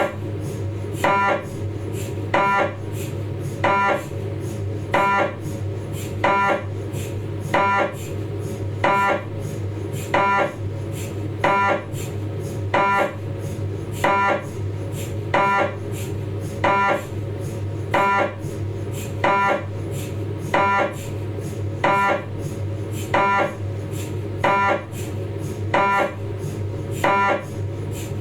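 Philips 1.5 T MRI scanner's gradient coils running a 3D T2-weighted sagittal spine sequence: a fast, even train of clicks with a louder pitched, beep-like pulse about every 1.3 seconds, over a steady low hum.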